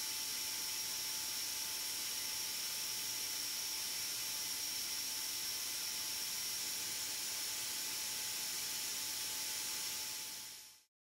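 Air-driven, air-bearing turbine spindle (BIG DAISHOWA RSX 7) running at 50,000 rpm while micro-drilling steel: a steady air hiss with an even, high whine over it. It fades out near the end.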